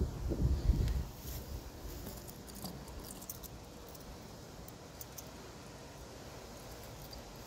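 A few low thumps in the first second, then faint small metallic clicks and rattles as a steel watch bracelet is strapped to a lawn-mower tire with a bungee cord.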